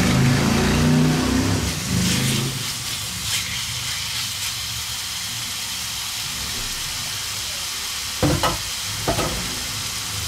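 Diced chicken breast frying in a hot pan: a steady sizzle, stirred with a wooden spatula, with a low hum during the first two seconds. A few short knocks come about eight and nine seconds in.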